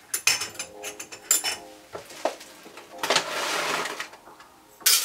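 A plastic blender jar and its lid being handled: a quick run of clinks and knocks, about a second of rustling and scraping around three seconds in, and a sharp click near the end.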